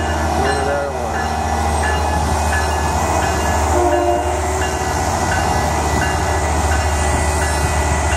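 Steady low rumble of a TriMet WES diesel commuter train. Over it, a level-crossing warning bell dings evenly, a little under twice a second.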